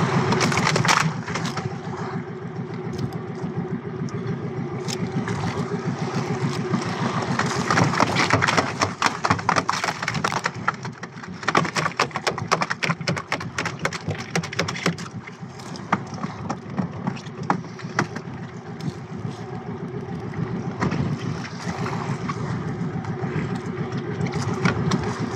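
Small boat engine running steadily, with runs of sharp knocks and slaps from about eight to fifteen seconds in as a freshly landed mahi-mahi thrashes and is struck in the boat.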